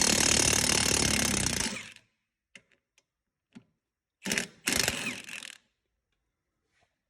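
Pneumatic impact gun hammering steadily as it undoes the rear shock absorber's mounting bolt, stopping about two seconds in. Then a few light clicks and two short clattering noises about halfway through, as the bolt and shock are handled.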